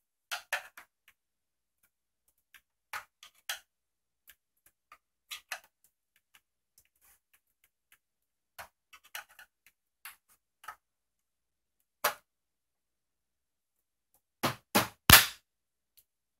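Plastic snap clips of a Planar PX2210MW monitor's bezel clicking and snapping loose as a flat-blade screwdriver pries the seam between bezel and back cover, in scattered single clicks. Near the end comes a quick run of three louder snaps, the last the loudest.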